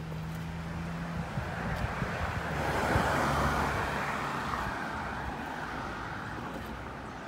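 A dark SUV driving past on the street: tyre and engine noise swells to a peak about three seconds in, then fades as it moves away.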